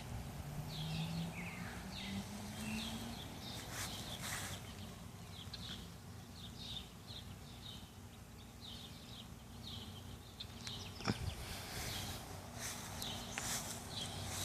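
Birds chirping repeatedly in short high calls over a low steady hum.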